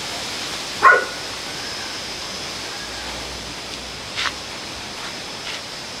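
A dog barks once, short and sharp, about a second in, with a fainter short sound a few seconds later, over a steady background hiss.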